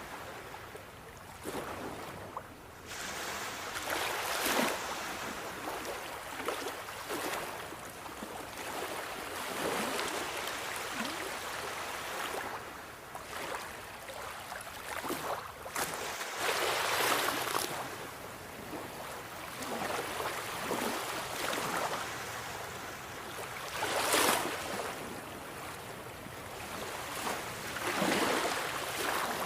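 Sea waves breaking and washing on the shore, a steady hiss of surf swelling into louder surges every few seconds.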